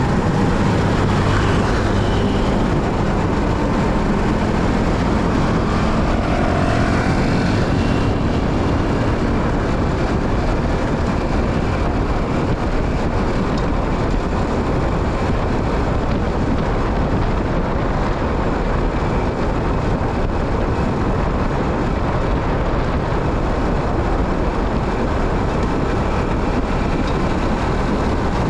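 Steady noise of a motorcycle on the move: wind and road rush over a low engine hum, with a few faint pitched tones in the first several seconds.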